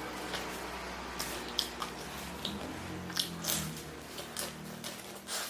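A person chewing food up close, with irregular small wet mouth clicks.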